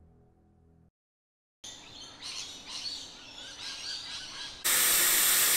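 Birds chirping over quiet outdoor ambience, then, about four and a half seconds in, a loud steady hiss of air starts suddenly as a 4WD's tyre is let down, airing down to about 20 psi.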